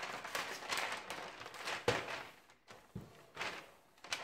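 Brown kraft paper crinkling and rustling as it is pressed and smoothed by hand into a wooden drawer, with a couple of soft knocks about halfway through.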